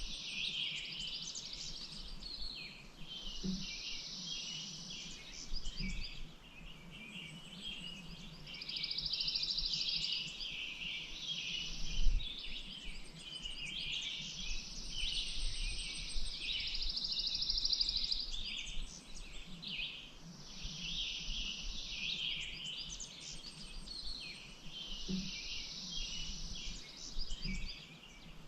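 Birds chirping and singing densely, with repeated trilled songs of a couple of seconds each. There is a faint low rumble under it and one brief thump about twelve seconds in.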